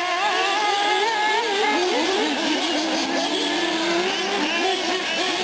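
Several 1/8-scale nitro R/C cars lapping a dirt track, their small two-stroke glow engines whining and revving up and down over one another as the drivers throttle through the corners.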